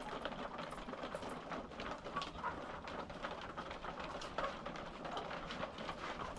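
Laying hens clucking and murmuring faintly, with scattered small clicks.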